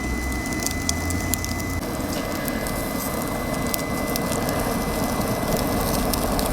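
Pork steaks sizzling on the grill of a wood-burning BioLite CampStove 2+, a steady sizzle with scattered crackles.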